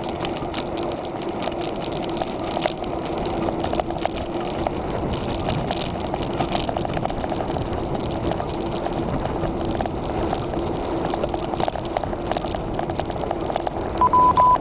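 A vehicle's engine running at a steady pace with road and wind noise, carrying a level hum and a light crackle. Near the end, a run of short, high electronic alert beeps starts.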